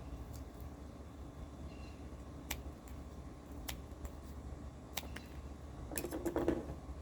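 Scattered light clicks and taps from small parts being handled, with a brief burst of rustling and clicking about six seconds in, over a steady low hum.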